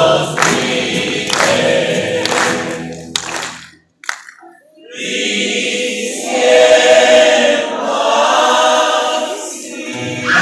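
Rondalla of male voices singing in harmony over strummed guitars. About four seconds in the music breaks off for about a second, then the voices come back in.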